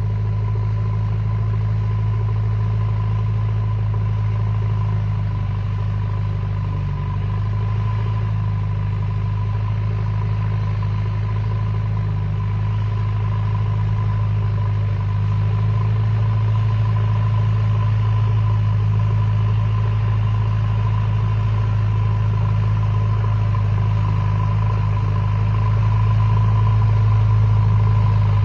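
JCB 3DX backhoe loader's diesel engine running steadily with a low, even drone, growing a little louder about halfway through and again near the end.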